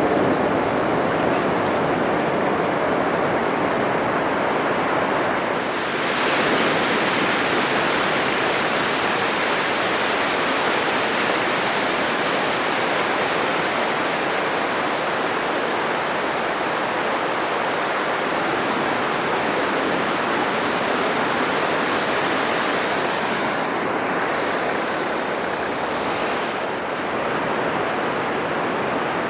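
Atlantic Ocean surf breaking on a sandy beach: a continuous wash of waves and rushing foam that swells about six seconds in.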